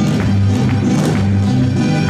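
Music for a Baja California folk dance, with a bass line and sharp percussive taps on a quick, regular beat.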